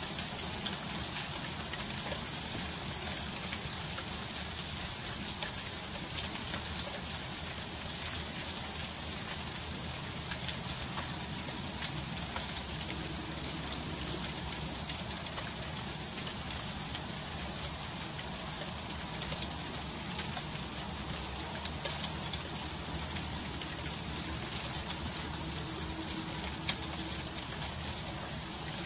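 Freezing rain falling steadily, a dense hiss of fine ticking as the ice pellets and droplets strike surfaces, with no gaps.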